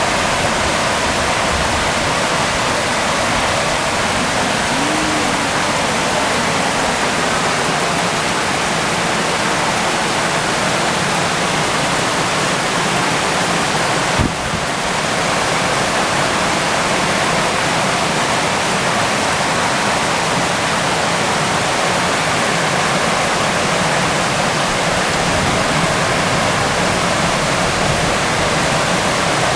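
Floodwater from a flash flood rushing steadily and loudly. There is a single brief click about halfway through.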